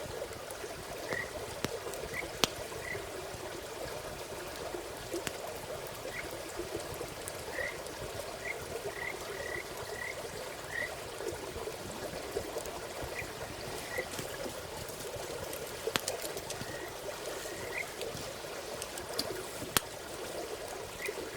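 Frogs calling: short, high chirps in scattered runs over a steady rushing background, with a few sharp crackles from a wood campfire.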